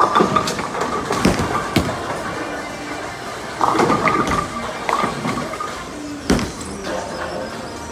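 Bowling pins crashing as a ball strikes them at the start, followed by the clatter of a busy bowling alley, with sharp knocks from balls and pins, and another loud knock near the end.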